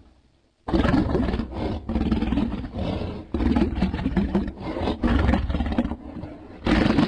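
Made-up allosaurus roar sound effects: several long, deep, rough roars back to back. They start about a second in, a softer growl comes near the end, and another loud roar begins just before the end.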